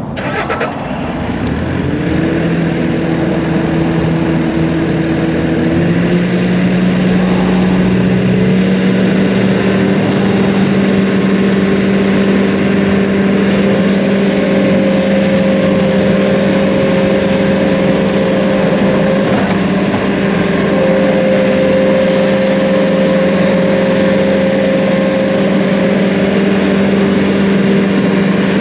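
Bobcat T650 skid steer's diesel engine running. Its speed steps up twice in the first several seconds, then holds steady. A higher steady whine comes in twice for several seconds.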